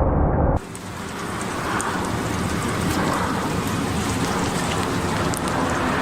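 Heavy rain falling steadily, with scattered sharp drop ticks. It starts about half a second in, where a loud, deep rumble cuts off abruptly.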